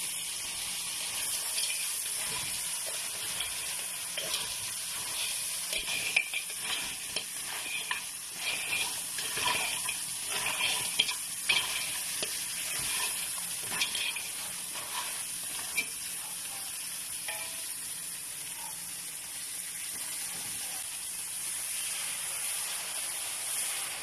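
Crabs stir-frying in a wok, sizzling steadily while a spatula tosses them, with many clattering strikes of spatula and shells against the pan, thickest through the middle stretch.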